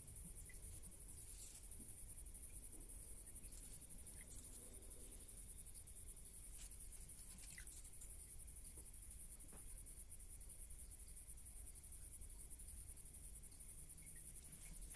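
Near silence with the faint, steady high-pitched chirring of insects, and a few soft ticks scattered through.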